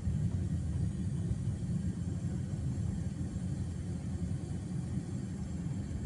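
Steady low rumble of a car driving at road speed, heard from inside the cabin: tyre and engine noise.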